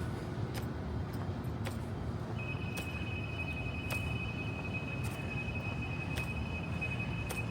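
Steady low rumble of city street traffic, with faint ticks about once a second from walking footsteps. A couple of seconds in, a steady high-pitched tone starts and holds.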